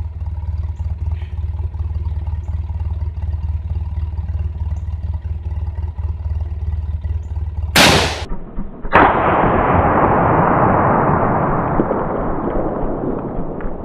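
A single shot from a scoped Mosin-Nagant M91/30 bolt-action rifle in 7.62x54R about eight seconds in, after a steady low rumble. About a second after the shot, a loud hiss starts suddenly and slowly fades.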